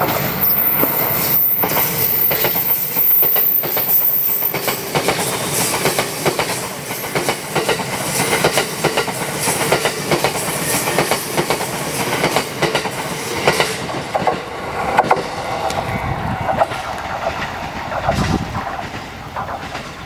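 A JR East E353 series limited express electric train passing close by at speed, its wheels clattering over the rail joints in a run of rapid knocks. The sound dies away near the end as the last car goes by.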